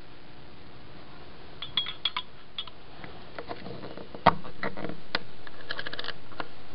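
Light clinks and taps of glass and metal labware being handled, some ringing briefly, then a sharp knock about four seconds in. After the knock the steady background noise is a little louder, with a few more small clicks.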